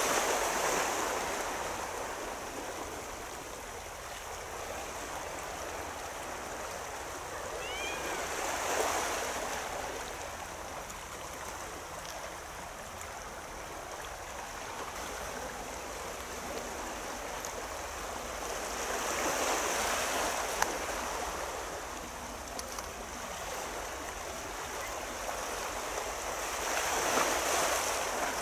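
Gentle sea waves washing in against the shore, a steady rush that swells roughly every eight to ten seconds.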